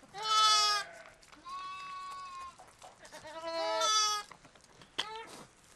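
Newborn lambs bleating: three drawn-out, high-pitched bleats about a second each, the middle one softer, then a short faint bleat near the end.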